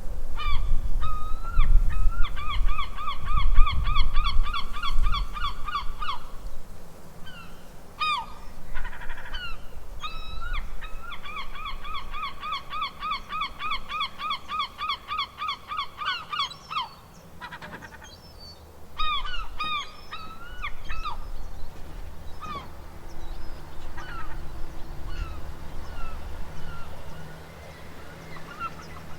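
Seagulls calling: two long runs of rapid repeated squawks, about five a second, with single calls between and after them. A low rumble runs underneath, heaviest in the first few seconds.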